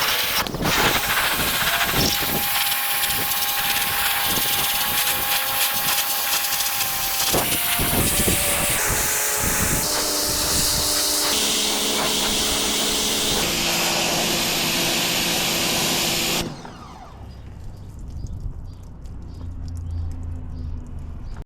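Pressure washer running, its spray hissing steadily while the motor's tone holds underneath; the sound shifts abruptly several times and then drops away sharply near the end.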